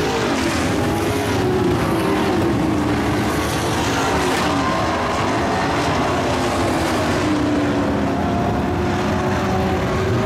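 Several dirt-track race trucks' engines running hard together around the oval, their overlapping pitches rising and falling as the trucks accelerate and back off.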